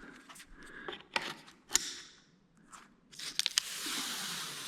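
Sharp clicks and handling noises of plastic clips and trim parts being worked by hand, with a quick run of clicks about three seconds in. A steady hiss follows over the last second or so.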